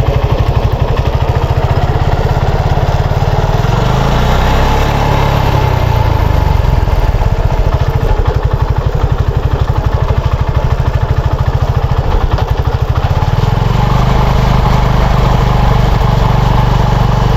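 Motorcycle engine running steadily, its revs rising twice, about four seconds in and again near the end. It is run to bring out the clicking of a worn, loose drive-chain master link, which the owner doubts will come through over the engine.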